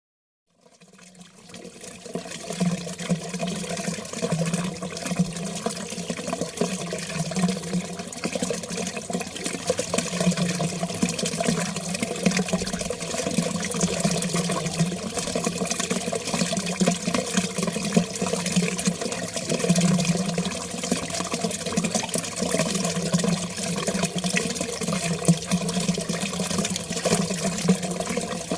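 Water flowing steadily in a continuous stream. It fades in from silence over the first two seconds.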